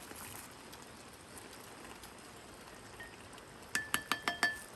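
Steady hiss of rain, then near the end a quick run of about six or seven metallic clinks on a cooking pot, with a light ringing tone.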